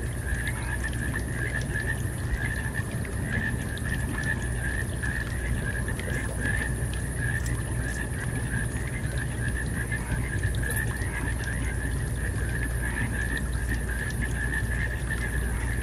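Steady road and engine noise inside a car's cabin cruising at about 75 km/h: a constant low rumble with a thin, slightly wavering high whine over it.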